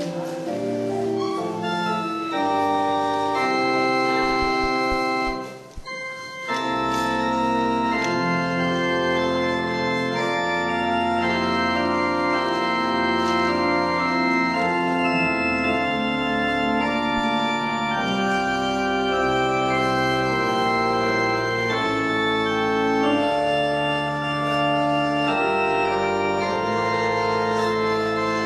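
Church organ playing in slow, held chords that change every second or two, breaking off briefly about six seconds in and then resuming.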